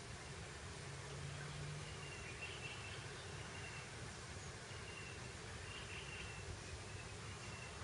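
Outdoor grassland ambience: a steady hiss of breeze, with faint short chirps repeating every second or so and a brief low hum about a second in.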